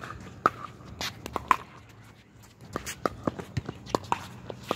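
Pickleball rally: sharp pops of paddles striking the hollow plastic ball in quick exchanges, with a short lull about two seconds in, and footsteps on the hard court between hits.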